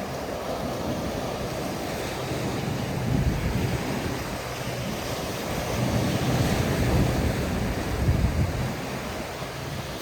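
Ocean surf washing and breaking on a beach in a steady hiss, swelling louder about three seconds in and again from about six to nine seconds, with a low rumble of wind on the microphone.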